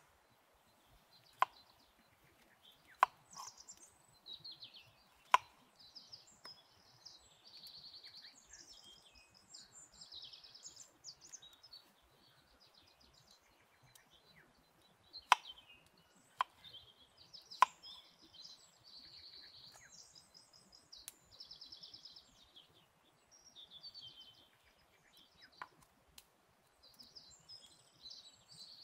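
Small knife cutting and coring fruit on a wooden cutting board, giving about seven sharp knocks of the blade against the wood spread through, with birds chirping and trilling throughout.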